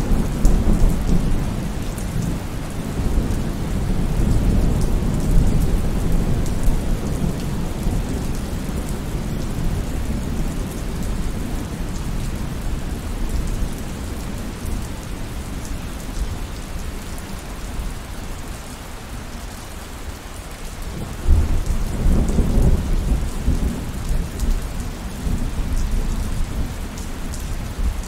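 Steady heavy rain with rolling thunder. A long low rumble fades away over the first twenty seconds, then a fresh peal breaks in sharply about twenty-one seconds in and slowly dies down.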